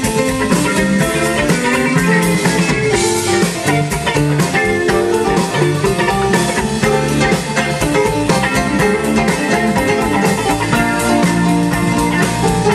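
Live rock-blues band playing an instrumental passage: guitar to the fore over bass, drums and keyboard.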